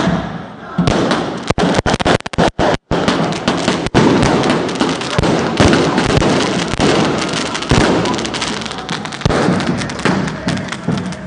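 Firecrackers and fireworks going off in a dense, rapid string of bangs and pops among burning hand flares, with a crowd shouting. The sound cuts out briefly a few times about two to three seconds in.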